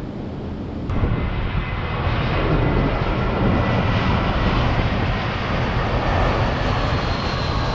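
Jet airliner passing low overhead, its engines a loud, steady rumble with a faint high whine, cutting in suddenly about a second in after a moment of wind and water noise from a ship's side.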